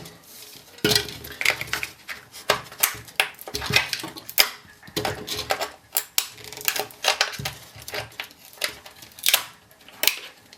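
Irregular clicks, knocks and scraping of a hard plastic laptop battery case and its 18650 cells being handled and worked apart by hand.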